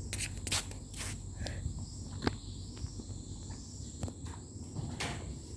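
Steady high-pitched trill of crickets, with scattered light clicks and knocks over it.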